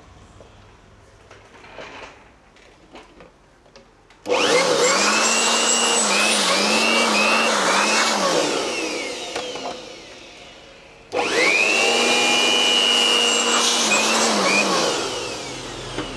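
A handheld electric cleaning tool's motor, used to clear dust from inside an opened laptop, runs in two bursts. It switches on about four seconds in and runs loudly for several seconds, its pitch dipping and recovering a few times, then winds down. It starts again a little past halfway and winds down near the end. Before it starts there are a few small handling clicks.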